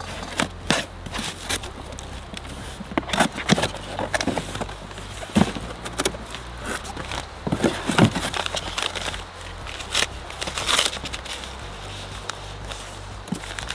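A cardboard rifle box being opened and its contents unpacked: irregular rustling and crinkling of paper packaging and cardboard, with a few louder knocks and scrapes.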